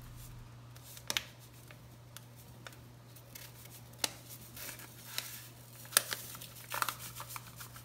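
Crinkling and rustling as the paper box and inner packet of instant pudding mix are handled, with a few sharp clicks, then a soft hiss of the dry powder pouring into a glass bowl.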